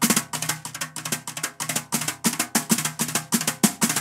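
Wire brushes with very flexible wires played on a metal-shell snare drum using the flex stroke, the wires bending against the head on each stroke. A quick, even run of crisp strokes, several a second.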